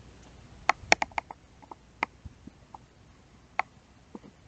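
Irregular light clicks of buttons being pressed, about a dozen, with a quick run of four or five about a second in.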